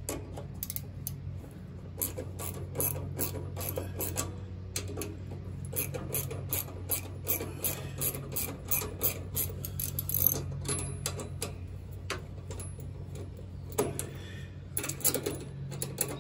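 Socket ratchet clicking in quick runs of sharp ticks as a half-inch nut is backed off, with a pause near the end before a last run, over a steady low hum.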